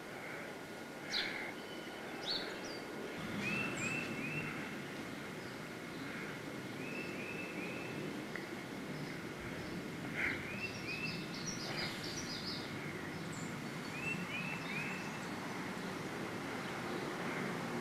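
Birds chirping outdoors over a steady background hiss. One bird repeats a short phrase of three or four quick notes several times, with other brief chirps between.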